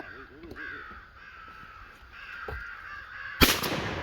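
Crows cawing, then a single loud shotgun blast about three and a half seconds in.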